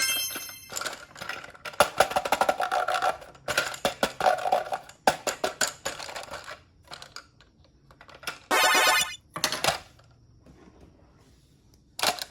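A rapid run of small clicks and clatter with snatches of music, then a short bright buzzing tone a little past halfway, after which it goes nearly quiet.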